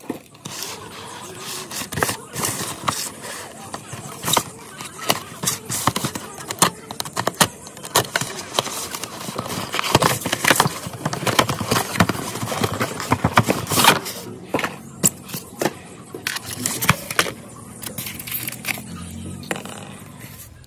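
Packaging of a diecast scale model car being handled and opened: a dense, irregular run of crackles and clicks.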